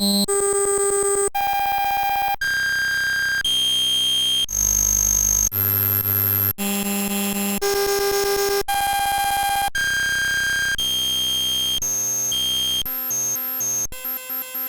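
A pop sound effect repeated so densely that it becomes a harsh, buzzy electronic tone. The tone jumps to a new pitch about once a second, and near the end it breaks up into choppy stutters.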